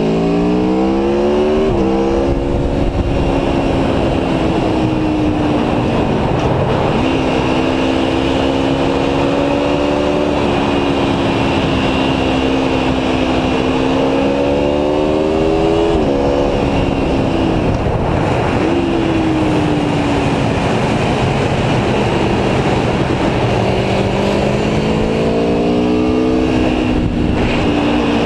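Aprilia Tuono V4 1100 Factory's V4 engine pulling hard, its pitch climbing through the revs and dropping sharply at gear changes, under heavy wind rush. About halfway through it rises to a shift, then the revs fall away as the bike slows before climbing again near the end.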